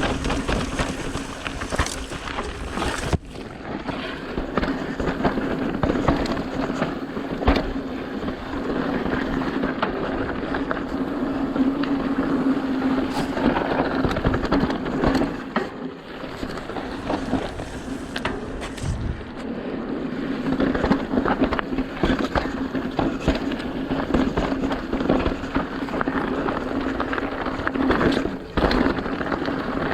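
Mountain bike riding down a rough dirt trail: tyres rolling and crunching over dirt and rocks, with many sharp clicks and knocks from the chain and frame rattling over bumps, and a steady hum underneath.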